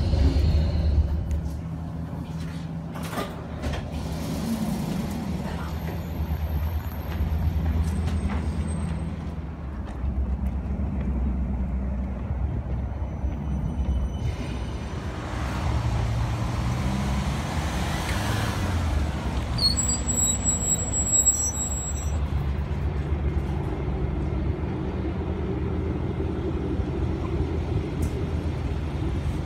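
City traffic noise: a steady low rumble of trams and road vehicles on snowy streets. About midway a vehicle passes with a hiss that swells and fades, followed by a brief high squeal. Near the end a tram runs past with a steady hum.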